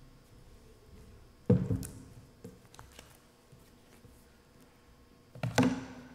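Handling noise from papers and a binder being set down and moved about on a wooden lectern, close to its microphone: two loud knocks, about a second and a half in and near the end, with a few light taps between.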